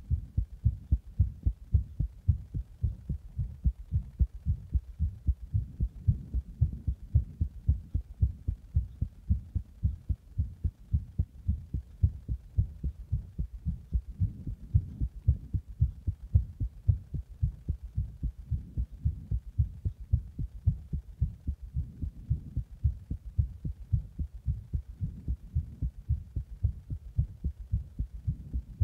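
Human heartbeat recorded close to the chest: a steady run of low, muffled lub-dub thuds, from a heart just after drinking a Monster energy drink in the bath and being pressed on.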